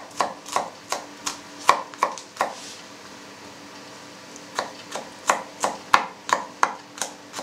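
Kitchen knife finely chopping garlic on a wooden cutting board: quick knocks of the blade on the board, about three a second. The chopping pauses for about two seconds midway, then starts again.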